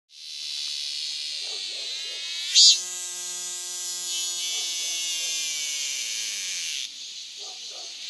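Cicada singing: a loud, shrill buzz that swells about two and a half seconds in, holds steady, then sags in pitch and cuts off sharply near the end.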